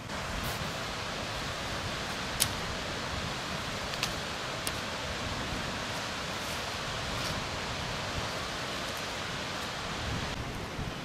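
Stinging nettles being picked with metal tongs: a steady rustling of leaves and stems, with about five short sharp clicks spread through, the loudest about two and a half seconds in.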